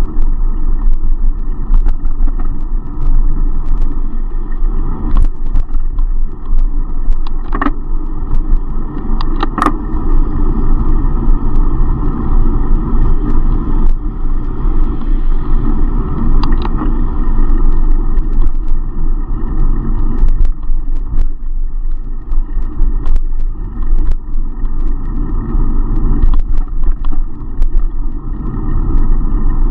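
Steady wind rumble and road noise on a camera riding a bicycle through city traffic, with motor vehicles passing close by. Scattered sharp clicks and rattles run through it.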